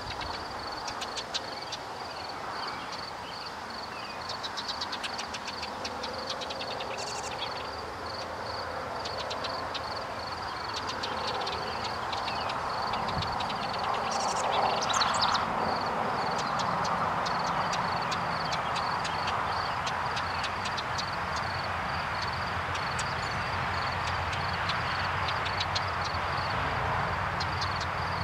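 Outdoor ambience: a steady distant rumble, with a rapid high pulsing note repeating throughout and several bursts of quick, high chattering bird calls, the clearest about halfway through.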